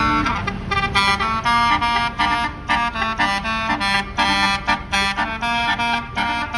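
Tour bus's basuri 'telolet' musical air horn playing a quick melody of separate notes over the low rumble of the bus engine and traffic.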